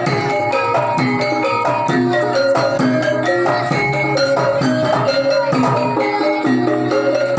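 Javanese gamelan music accompanying a jaranan (kuda lumping) horse dance: tuned metallophones play a steady, continuous run of struck notes over drums.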